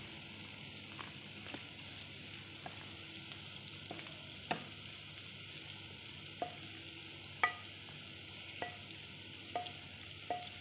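A spatula scrapes and knocks against a frying pan as tofu and tempeh in coconut-milk gravy are pushed out into a bowl. About a dozen sharp taps at irregular intervals, several ringing briefly off the pan, over a steady faint hiss.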